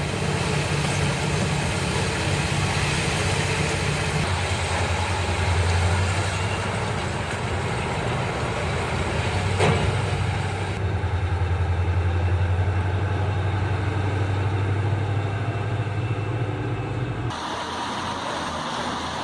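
Large diesel engine of a Komatsu 930E mining haul truck running with a steady low throb. There is one sharp click about halfway through, and the engine sound drops away near the end.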